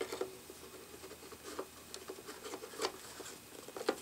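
Replacement projector lamp module being worked into its bay by hand: scattered small clicks and rubbing of its plastic housing as its two plugs are pushed into their sockets.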